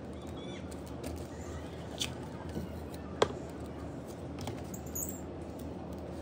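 Small clicks, taps and faint squeaks of hands handling a taped plastic photocard holder and its cardboard backing, with one sharp click about three seconds in, over a steady low hum.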